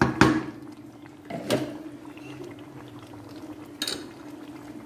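A spatula scraping ground tomato purée from a bowl into an aluminium cooking pot. The spatula knocks hard against the metal just at the start and again about a second and a half in, over the wet slop of the purée. A sharper clink comes near the end as the spatula is set down in the pot, with a low steady hum underneath.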